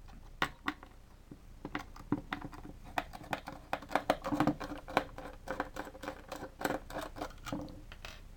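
Small screwdriver undoing the corner screws of an LED floodlight's front cover, with a run of small, irregular clicks and scratches as the bit turns and the housing is handled.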